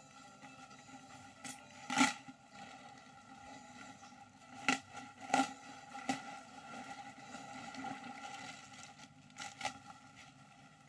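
Several sharp clicks and knocks, the loudest about two seconds in and others scattered through the middle and near the end, over a steady faint background: items being handled on a table.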